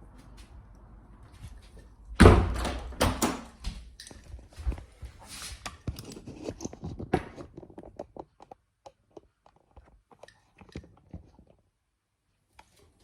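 A run of thumps and clicks: a loud thump about two seconds in, then a quick series of knocks and ticks that grow lighter and sparser and stop shortly before the end.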